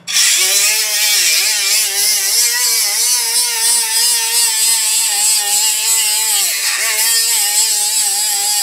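Milwaukee M12 cordless right-angle die grinder with a 3-inch non-woven abrasive disc grinding the face of a rusty cast-iron brake rotor. It is a steady high motor whine over a hiss of abrasion, and the pitch dips several times as the disc is pressed harder into the metal and the motor loads down.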